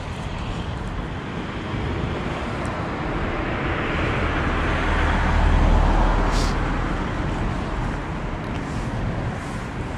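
A car passing by on a nearby road: tyre and engine noise with a deep rumble that swells to a peak about halfway through, then fades away.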